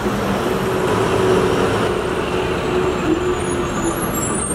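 Street traffic: a motor vehicle's engine running close by, a steady hum over road noise.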